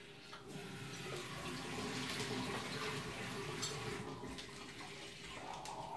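Water pouring into a container in a steady stream, building up about half a second in and easing off after about four seconds.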